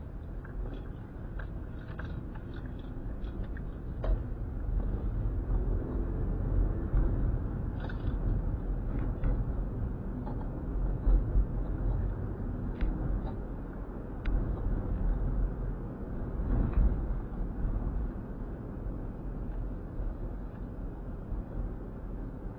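Car driving, heard from inside the cabin: a steady low rumble of engine and tyres on the road, with scattered light clicks and rattles.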